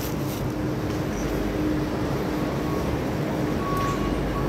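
Steady mechanical drone of an industrial warehouse's air-handling machinery: an even rushing noise with a low steady hum. A faint higher steady tone joins it near the end.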